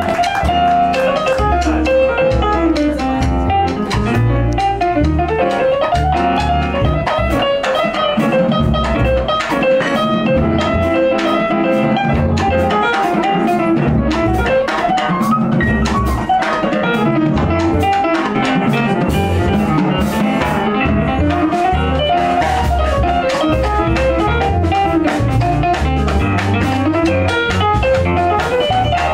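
Live jazz: a piano solo with quick runs of notes, backed by double bass and drum kit.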